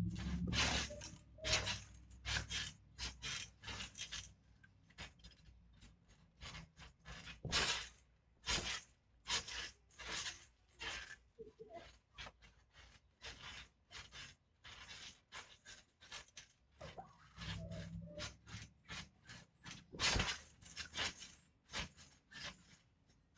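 Bodies landing and scuffling on a trampoline mat: many short, irregular thumps and rubbing sounds as a person throws himself down, rolls and grapples. A low rumble is heard briefly at the start and again about two-thirds of the way through.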